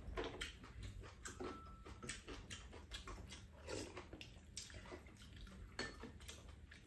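Faint, wet eating sounds of stewed konjac and quail eggs being chewed and slurped, with many quick, irregular smacks and clicks.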